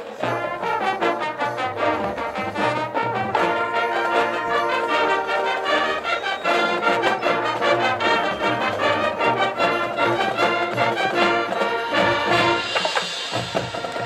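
Marching band playing live, its brass section carrying the music over percussion, the sound brightening near the end.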